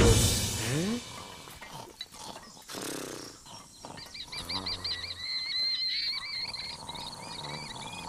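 Background film music ends in the first second on a rising note; then a man snoring, a low rasping snore followed by a wavering, warbling whistle that runs through the second half.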